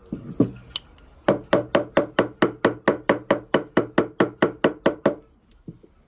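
Rapid, even hammer taps on the shank of an 18-karat gold ring, about four blows a second for roughly four seconds after two or three single knocks, straightening and shaping the thin shank.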